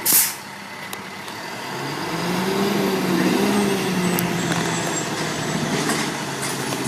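A large truck's engine pulling away: its note rises about two seconds in, holds steady, then slowly fades. A short sharp hiss comes right at the start.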